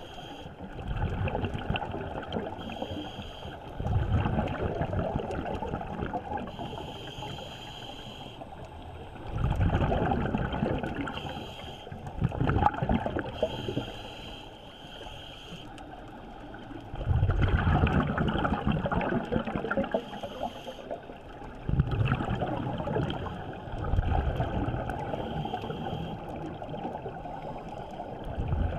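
Scuba diver breathing through an open-circuit regulator, heard underwater through the camera housing: exhaled bubbles rumble out in bursts every three to five seconds, with a short hiss of inhalation through the regulator between them.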